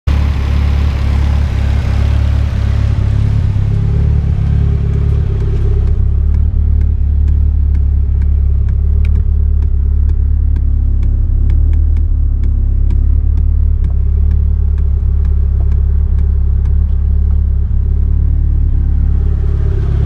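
A modified turbocharged car's engine idling steadily. About six seconds in the sound becomes muffled, as heard from inside the cabin, and a faint regular ticking comes through over the low hum.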